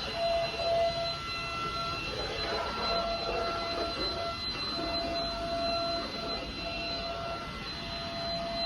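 Gaabor vacuum cleaner running: a steady high motor whine over rushing air, the whine dropping out and coming back every second or so.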